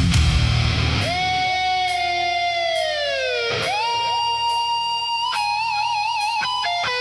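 Instrumental heavy-rock music: a distorted electric guitar hits a heavy chord, then holds a lead note that slowly bends down. The note dives about three and a half seconds in, then climbs back to a high held note with wide vibrato.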